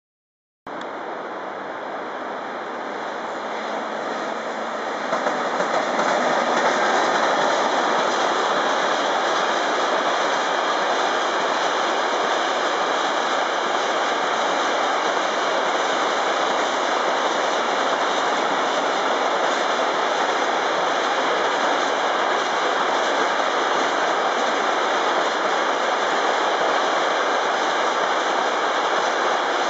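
Container freight train hauled by a Siemens ES64F4 electric locomotive rolling past: a steady rushing noise of wheels on rail that starts suddenly, builds over the first five seconds or so, then holds steady.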